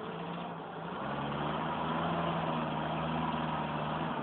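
Semi truck's diesel engine running under load as the truck is driven forward off road; the engine note swells about a second in and then holds steady.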